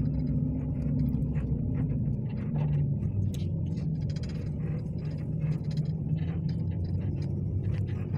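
Moving intercity bus heard from inside the cabin: a steady engine hum and road rumble, with scattered short clicks and rattles.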